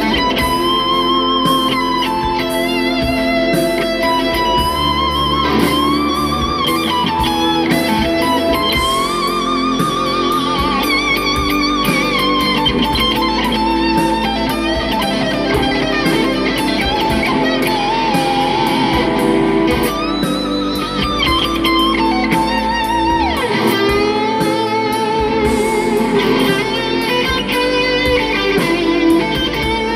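Stratocaster-style electric guitar playing a melodic lead solo over a backing track, with held notes given wide vibrato and bent up and down.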